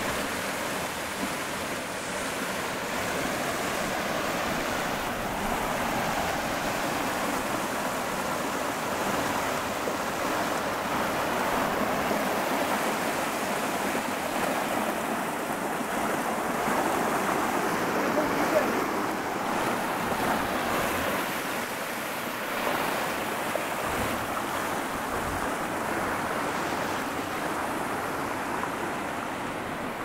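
Small stream water cascading over rocks and a low stone weir into pools, a steady splashing rush.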